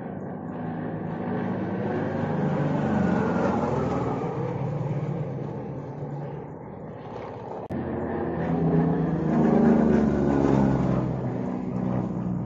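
Piston-engined aerobatic race plane flying past low, its propeller engine swelling and then dropping in pitch as it goes by. After an abrupt break about two-thirds of the way in, a second, louder pass.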